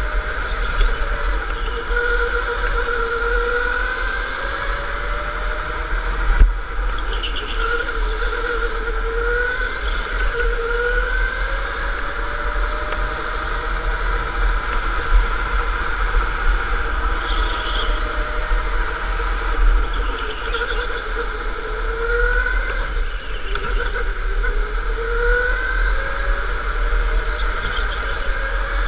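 Electric go-kart motor whining, its pitch rising again and again as the kart accelerates and falling back as it slows, over a steady low rumble from the kart shaking the onboard camera. A single sharp knock comes about six seconds in.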